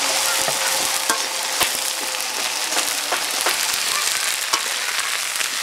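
Cut okra sizzling in hot oil in a metal wok while a metal spatula stirs it. The spatula knocks and scrapes against the pan every half second to second.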